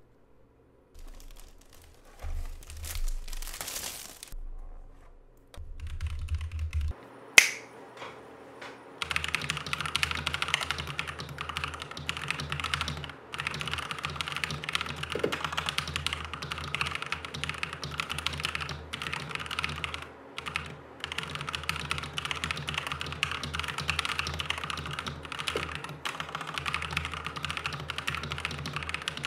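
Packaging is handled with scattered rustles and a sharp click about seven seconds in. Then, from about nine seconds in, comes fast, continuous typing on a NuPhy Halo65 mechanical keyboard, a steady patter of key clicks.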